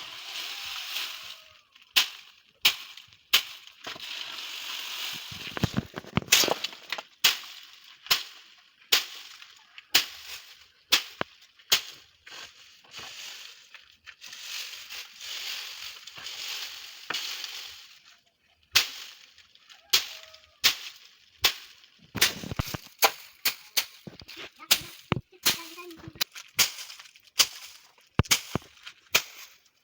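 Dry bean plants being beaten with a stick to thresh out the beans: sharp, irregular thwacks, about one to two a second, with rustling of dry pods and stalks between the strokes.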